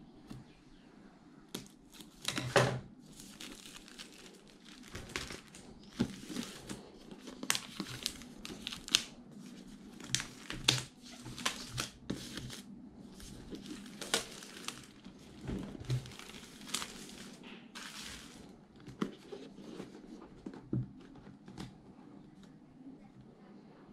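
Plastic shrink-wrap film being cut, torn and peeled off a cardboard box: a run of sharp crinkling and tearing crackles that thins out in the last few seconds.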